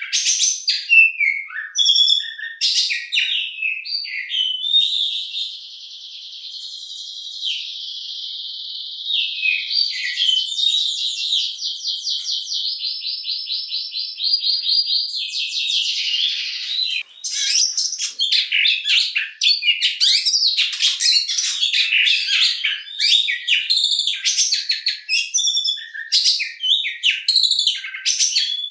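Oriental magpie-robin singing loudly: short varied whistled and chattering phrases, then a long fast rattling trill from about five seconds in until about sixteen seconds in, then rapid varied phrases again.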